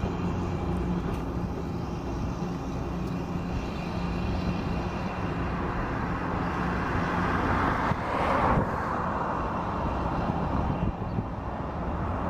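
Steady low engine hum and city traffic noise around a rail yard, with a brief louder rushing swell about eight seconds in.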